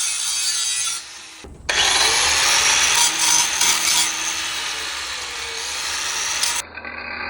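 Metal being ground with a power grinder: a loud, steady, hissing grind with a faint motor whine that rises and falls under it. It breaks off briefly about a second in and cuts to a duller hum near the end.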